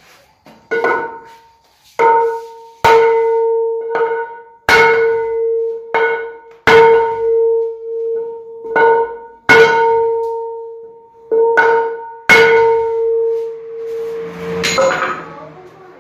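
About a dozen hammer blows driving a bar against the dented rim lip of a car alloy wheel to straighten it. Each strike rings out with a clear metallic tone that lingers until the next blow.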